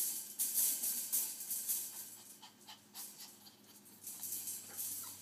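Wire exercise pen rattling and scraping as a dog paws and climbs against its metal panels, in a run of quick, scratchy rattles that bunch in the first two seconds and come again in shorter bursts later.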